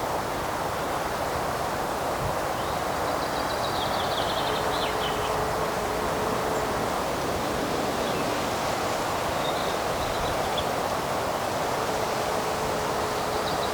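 Steady rushing outdoor background noise in a woodland, with faint bird chirps about three to five seconds in and again near ten seconds. A faint steady hum comes and goes.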